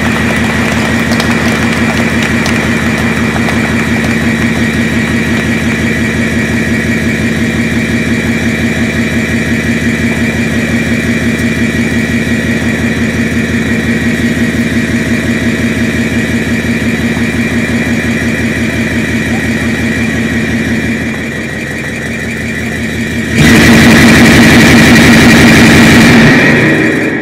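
Loud, steady buzzing drone with a fast pulsing rumble under a high whine. About twenty seconds in it dips, then a couple of seconds later it jumps much louder before fading at the very end.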